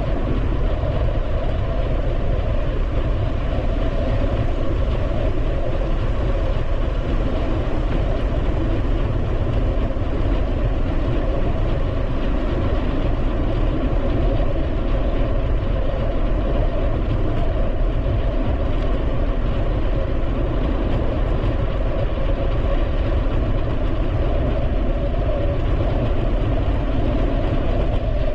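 Steady wind rush on a bicycle-mounted camera's microphone, mixed with the tyres rolling on the paved bike path: a heavy, even rumble with no breaks.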